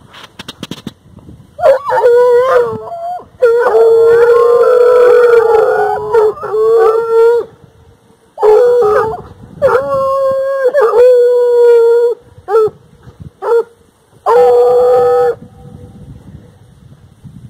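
A pack of hunting hounds baying on the hunt: long, drawn-out howling calls, several voices overlapping at times. The calls come in stretches of one to four seconds with short breaks between, starting about a second and a half in and stopping a couple of seconds before the end.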